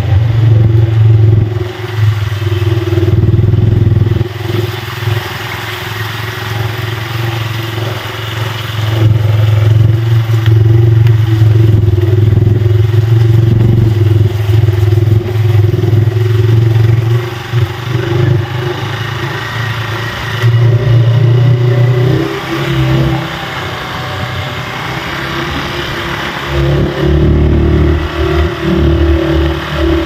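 Small motorcycle engine running as it rides over a rough dirt road. The low hum swells and eases every few seconds as the throttle opens and closes.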